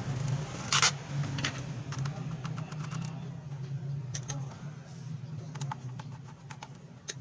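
Small scattered clicks and ticks from a screwdriver working the bottom-case screws of a laptop, the loudest click about a second in, over a steady low hum.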